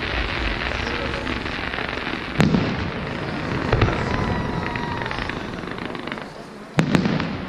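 Fireworks display: aerial shells bursting with sharp bangs about two and a half seconds in, again near four seconds, and twice in quick succession near seven seconds, over a steady crackle of burning stars.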